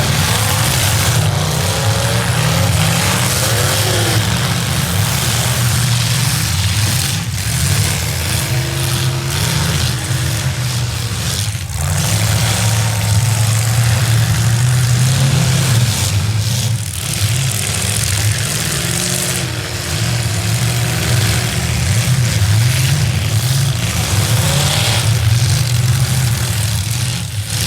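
Several V8 demolition derby cars running and revving hard together, the engine note rising and falling, with a few sharp bangs of cars hitting each other.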